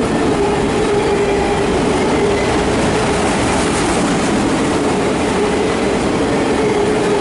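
Empty autorack cars of a freight train rolling past: a steady, loud rumble of steel wheels on rail, with a steady ringing tone riding over it.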